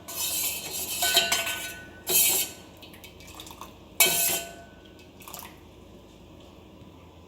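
A spoon stirring in a cooking pot, scraping and clinking against its sides while honey is mixed into warm ginger-lemon water. The stirring runs for about two seconds, then come a few sharper clinks, the last about four seconds in.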